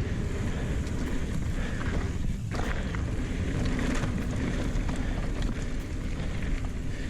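Wind noise buffeting a GoPro action camera while an Ibis Ripmo AF mountain bike rides along a trail, its tyres rumbling on the dirt, with scattered light clicks and rattles from the bike.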